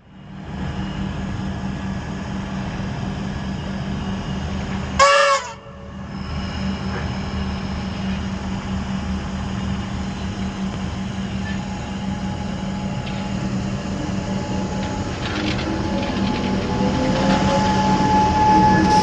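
Comeng electric multiple-unit train standing at the platform with a steady electrical hum. It sounds one short horn blast about five seconds in. Near the end it pulls away, its traction motors whining up in pitch and growing louder as the train draws past.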